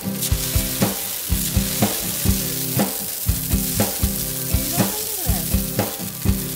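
Water spraying from an outdoor shower head and splashing onto rock: a steady hiss. Under it runs background music with a steady beat of about two beats a second.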